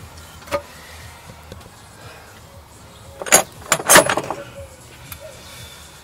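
Metallic clinks and clatter of engine parts and tools being handled: one click about half a second in, then a quick cluster of sharp knocks and clinks about three to four seconds in.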